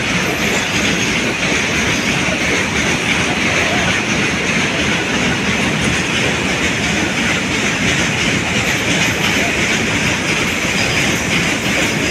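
Train of LPG tank wagons rolling past close by: a loud, steady noise of wheels running on the rails that keeps on without a break.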